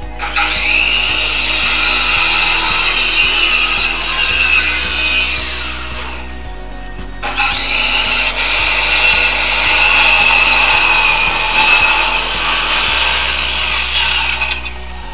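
Power tool working wood in two long runs, about six seconds and then about eight, with a brief stop between them.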